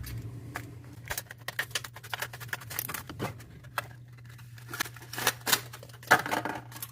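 Packaging of a small drill cup brush being opened and handled: irregular clicks, taps and rustles of cardboard and plastic, busiest in the second half, over a steady low hum.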